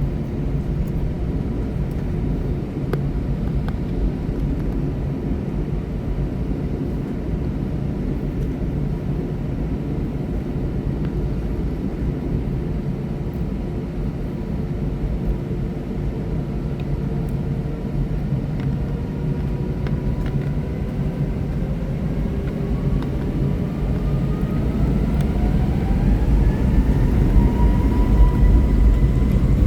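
Airbus A320's IAE V2500 turbofan engines heard inside the cabin: a steady low rumble, then from about seventeen seconds in a whine that rises steadily in pitch as the engines spool up, with the rumble growing louder near the end as takeoff thrust is set.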